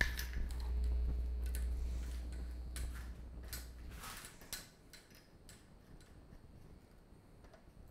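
Metal tripod lighting stand being set up: scattered clicks and clacks as its legs are spread and locked, with a low rumble during the first half.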